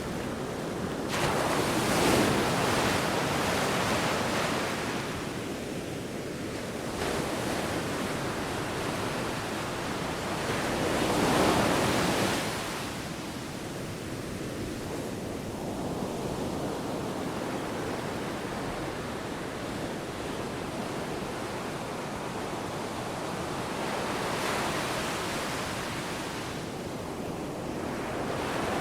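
Ocean waves breaking and washing in, a steady surf with louder surges about a second in, around eleven to twelve seconds in, and a gentler one near the end.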